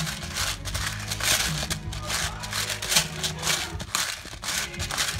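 Hand-twisted pepper grinder cracking black pepper: a run of short gritty crunches, over background music.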